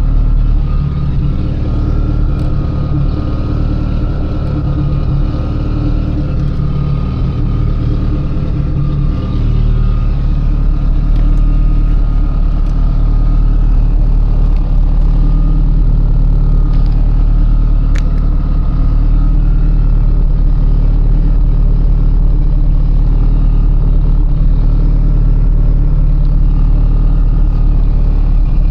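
Mitsubishi Lancer Evolution IX's turbocharged 4G63 four-cylinder running as the car is driven, a steady engine drone that grows a little louder about ten seconds in. No rattle stands out from the taillights, which have been refitted with new grommets and screws.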